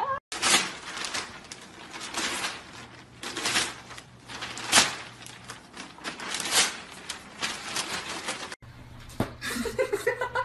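A newspaper crinkling and rustling in sharp crackles as a golden retriever grabs at it with its mouth. Near the end, after a cut, a small dog starts whining.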